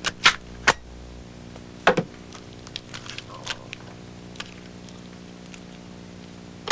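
Sharp plastic clicks of a portable cassette player (Walkman) being handled, its cassette door and controls clacking: three quick clicks in the first second, a louder clack about two seconds in, then a few lighter ticks, over a faint steady hum.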